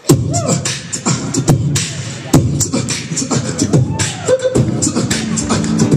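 Live beatboxing into a microphone over a PA: quick vocal drum sounds (kicks, snares and sharp hi-hat clicks) mixed with sliding pitched vocal sounds.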